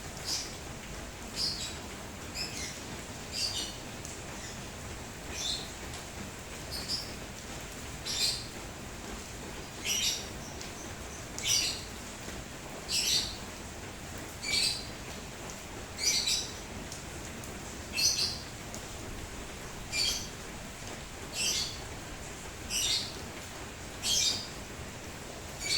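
A bird repeats a short, high chirp about every one and a half seconds, louder in the later part, over the steady hiss of falling rain.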